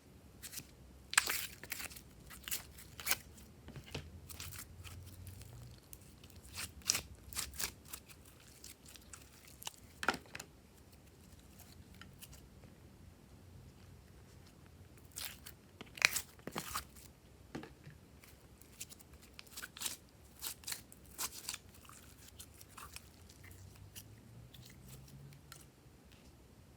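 Glossy slime being squeezed and mixed by hand, giving irregular sharp clicks, pops and crunchy crackles, some in quick clusters, with quieter pauses between.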